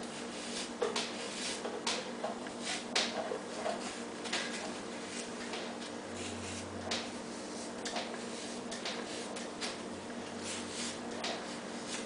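Irregular short scratching and tapping sounds of handwork on a tabletop, over a steady low hum.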